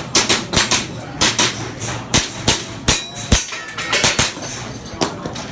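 Airsoft guns firing during a skirmish: an irregular run of sharp cracks, a couple to a few each second, some close together in pairs.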